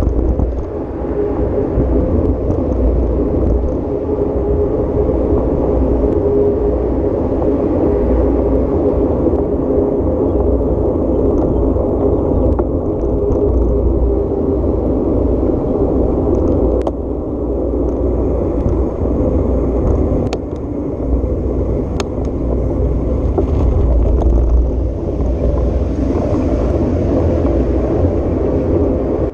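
Off-road vehicle's engine running steadily under a heavy low rumble while driving over rough ground, with a few sharp knocks about two-thirds of the way through.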